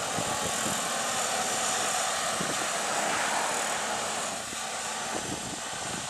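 Fendt 936 Vario tractor engine running steadily under heavy load, pulling a deep plough through the soil.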